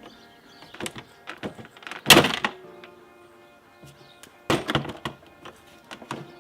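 Knocks and clunks of the Volkswagen GTI's plastic intake airbox and engine cover being worked loose and lifted out of the engine bay, loudest about two seconds in and again a little past four seconds.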